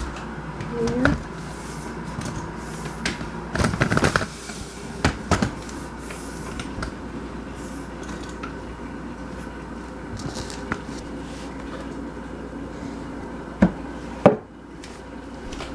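Scattered knocks and handling clatter over a steady low hum, then near the end two sharp clicks as the plastic lid of a picnic cooler is unlatched and swung open.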